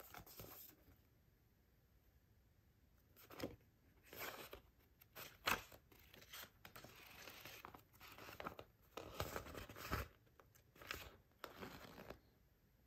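Soft paper rustling as the pages of a paperback manga volume are leafed through and handled, in short irregular bursts with a few sharper page snaps.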